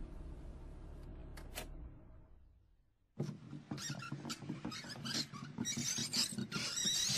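Car engine sound effect rumbling low and dying away as the car pulls over and stops, with two short clicks as it ends. After a moment's quiet comes a few seconds of clicking and rattling.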